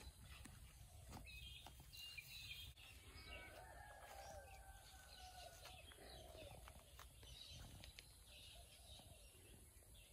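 Faint garden birdsong: small birds chirping on and off, and a distant rooster crowing once for about three seconds in the middle.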